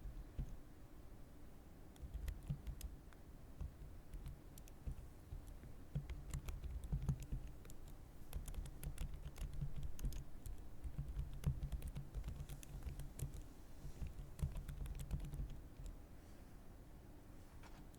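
Continuous typing on a computer keyboard: a steady stream of keystrokes, each a short click over a soft low thud, thinning out near the end.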